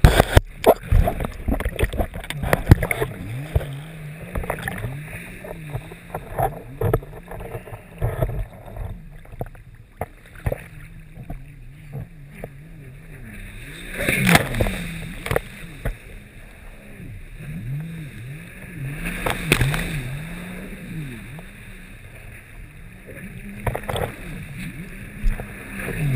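Jet ski engine running with its pitch rising and falling again and again as it rides and turns, with the hull slapping and spraying water; three loud splashes stand out, the first about halfway through.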